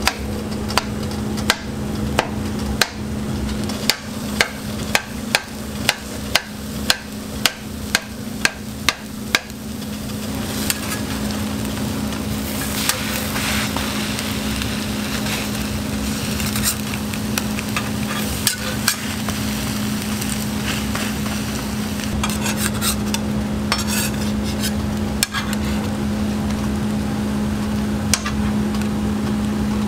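Metal spatula chopping down through a cabbage, carrot and ham egg mixture onto a steel griddle, about two sharp strikes a second, stopping about ten seconds in. After that the mixture sizzles on the griddle, with occasional spatula taps and scrapes, over a steady low hum.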